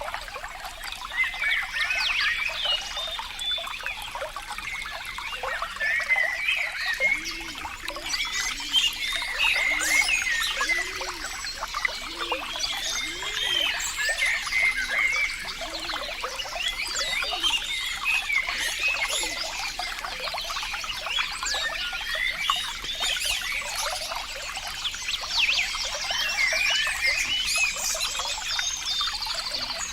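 Shallow water trickling and gurgling over stones, a steady busy stream of little splashes and bubbles. From about seven to fourteen seconds in, a run of about eight short, low notes, each rising and falling, sounds under it.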